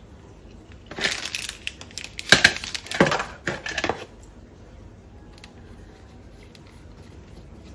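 Packaging rustling and crinkling as it is handled, loud for about three seconds with several sharp crackles, then a few faint clicks.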